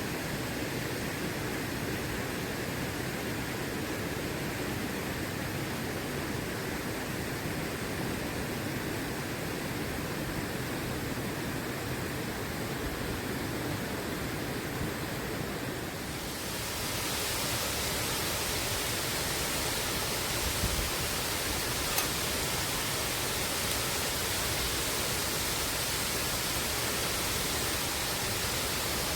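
Steady rush of a waterfall. About sixteen seconds in, the sound becomes brighter and a little louder.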